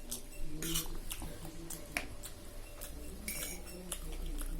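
Cutlery clinking and scraping against a plate while eating, a string of short, irregular clinks.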